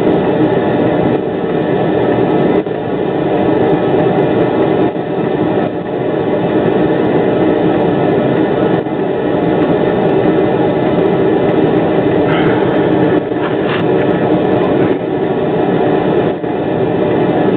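Steady running noise of an Anitra tram heard from inside its cab at a junction, with a couple of brief higher-pitched squeaks about twelve to fourteen seconds in.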